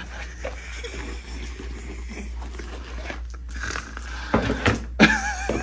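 A dog's plastic cone collar bumping against furniture, giving a few knocks and thumps in the second half over a steady low hum.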